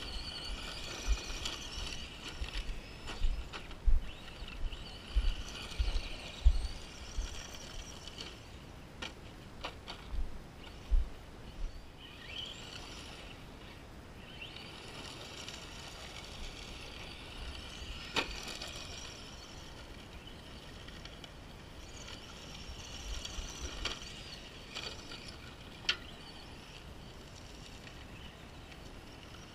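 Brushed electric motor and gear drive of an Arrma Senton 4x4 RC short course truck on a 2S LiPo, whining as it repeatedly speeds up and slows down, with a few sharp clicks.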